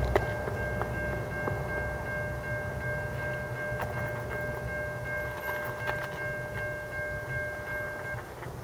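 Steel rail ringing with a steady high-pitched hum of several fixed tones as a train approaches on the line, cutting off about 8 seconds in. Under it runs a low rumble, with scattered sharp clicks.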